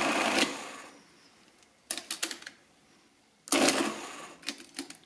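Marchant ACT-10M electric mechanical calculator running in two short motor-driven cycles of about a second each, a whirring clatter of its gear mechanism, the first ending about half a second in and the second starting midway and fading. Sharp clicks of keys and levers come between and after them.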